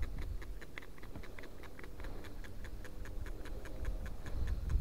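Rapid, even ticking, about five or six ticks a second, with a low rumble underneath.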